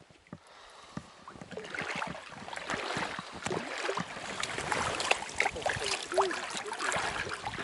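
Close splashing and sloshing of river water as a hooked grayling is landed by hand, with small knocks and drips. It starts quietly and gets busier after about a second and a half.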